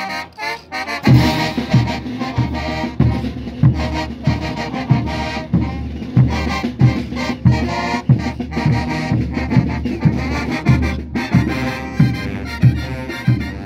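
Live brass band of saxophones and brass instruments playing over a steady bass drum beat, a little under two beats a second. The full band and drum come in together about a second in.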